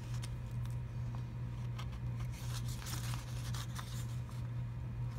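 Sticker being peeled off a paper sticker sheet with a small tool: faint crinkles of the flexed sheet and a few light ticks, over a steady low hum.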